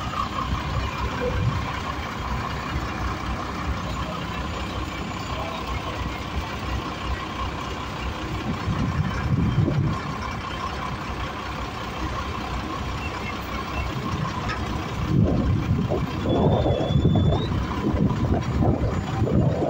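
Truck engine running to drive an XCMG SQ8ZK3Q truck-mounted knuckle-boom crane as the boom is moved, a steady high whine over the engine's rumble. The sound grows louder and more uneven over the last few seconds.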